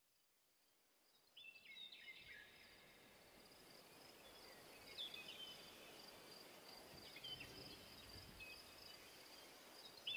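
Faint nature ambience fading in, the opening of an ambient music track: a steady high insect drone with four short chirping calls a few seconds apart.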